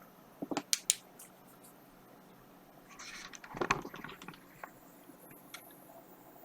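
Handling noise while the power supply board is looked over: a few sharp clicks or taps about half a second to a second in, then a short rustling scrape about three to four seconds in.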